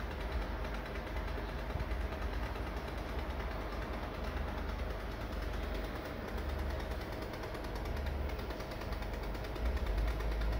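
Floppy drive in a Karin Mini Drive running as it reads and loads a game: a steady low motor hum with fast, even mechanical ticking.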